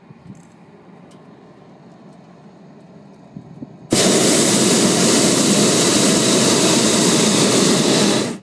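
Hot-air balloon's propane burner firing in one loud blast of about four seconds, starting and cutting off abruptly, after a faint low rumble.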